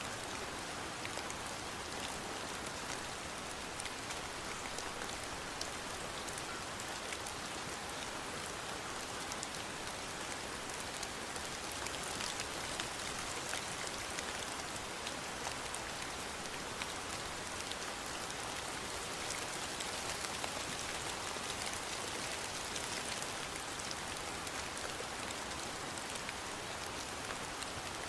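Steady rain falling, with many small drop ticks in an even hiss.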